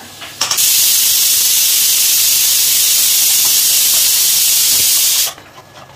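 A loud, steady hiss that starts about half a second in and cuts off suddenly about five seconds in.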